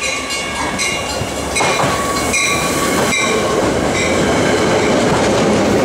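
Metra commuter train of stainless-steel bilevel cars rolling into a station platform and passing close by, its rumble growing louder about one and a half seconds in. High metallic wheel squeals come and go over the rumble as the train slows.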